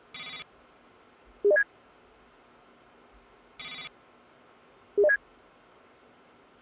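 Computer messaging-interface sound effects: a short, high, bright ringing trill, then a quick rising bleep a second and a half later, the pair coming twice, over a faint steady hum. They go with a text message being composed on screen.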